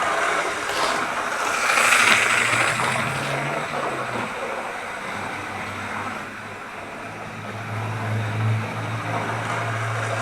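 OO-gauge model train running on the layout track: a steady motor hum with wheels rattling over the rails, with a rushing swell about two seconds in and the hum strongest near the end.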